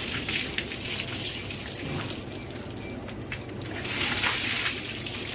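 Water poured from a plastic mug over a cow's head, splashing and streaming onto a concrete floor, with a second heavier pour about four seconds in.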